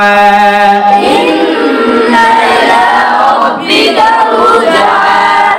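A lone reciter's voice holds the last note of a Quranic verse for about a second. Then a group of voices chants the verse back together, the many voices overlapping.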